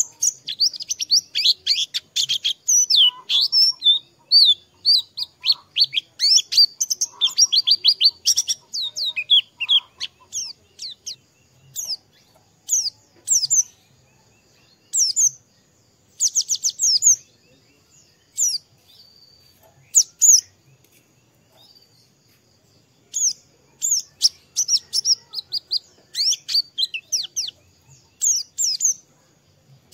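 White-eye (pleci) singing: rapid high-pitched twittering chirps and trills, nearly continuous for the first ten seconds or so, then in short separate phrases with pauses between them.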